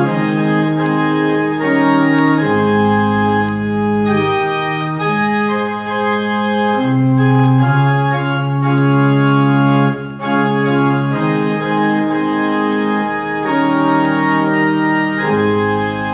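Pipe organ playing slow, sustained chords that change every second or two.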